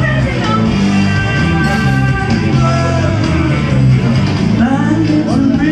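Karaoke backing track, rock music with guitar, playing loudly over a bar's sound system. A woman's amplified singing returns near the end.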